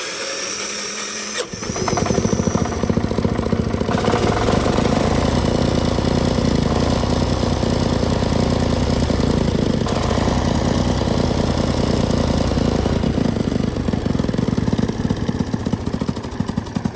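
A single-cylinder tractor engine starts up over the first second or two, then runs loud with a rapid, steady chugging that slows near the end. It is exhausting through a tall plastic pipe extension that the hot exhaust is melting and that leaks badly, so the pipe does little to quiet it.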